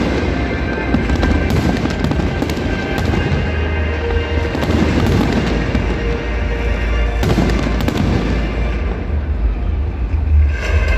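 Fireworks display: a dense, continuous barrage of crackling and booming shells going off together over a deep rumble, the crackle thinning near the end.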